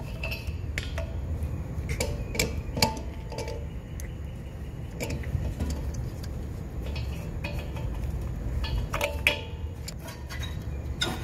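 Scattered metallic clicks and clinks of hand tools and brass propane fittings being handled as a pigtail hose is unscrewed from a propane tank valve and the regulator mount is worked loose, over a low steady background rumble.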